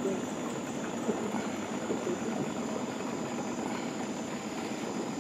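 Steady low drone of a boat's engine running, heard from on board.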